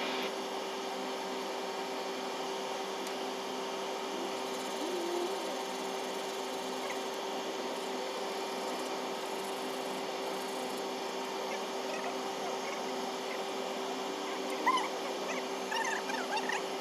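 A machine hums steadily on one fixed tone. Near the end, a few short, high, sliding chirps or whimpers sound over it.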